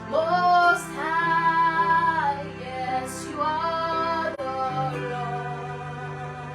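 A woman singing a worship song over soft instrumental backing, with long held notes that bend at the ends.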